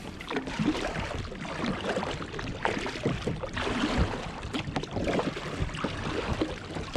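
Double-bladed kayak paddle dipping into the sea, the blades splashing and swishing through the water with each stroke, roughly one splash every second.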